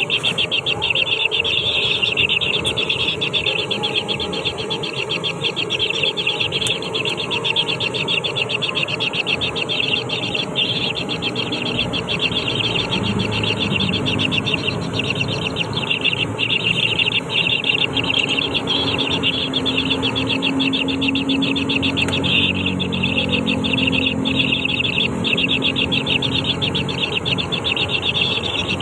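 A continuous high, rapidly pulsing buzz of insects, with a low rumble underneath and a low steady hum in the second half.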